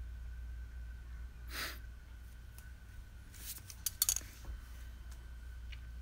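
Tape being handled and torn: a soft rustle about a second and a half in, then a short burst of crackles and clicks around three and a half to four seconds. Underneath, a steady low hum and a faint steady high tone.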